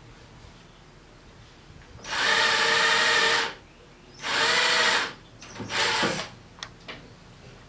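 Cordless drill running at a steady pitch in two runs, about a second and a half and then about a second long, boring a hole in wood with a brad point bit. A shorter, weaker burst follows.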